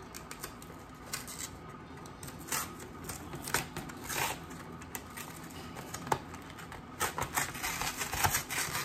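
Cardboard and plastic packaging of a trading-card box being torn and pulled apart by hand: irregular short rips and crackles, coming thicker in the last couple of seconds.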